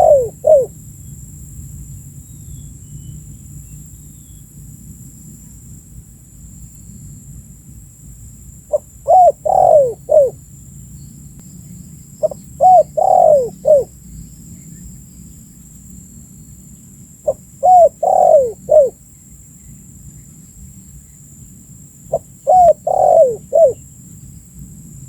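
Spotted dove (tekukur) cooing: phrases of a short first note followed by three falling coos, repeated four times about every four to five seconds, over a steady low hum.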